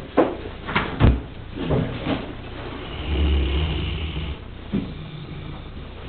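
Large dog snoring in its sleep: several short, sharp sounds in the first two seconds, then one long, low snore of over a second starting about three seconds in.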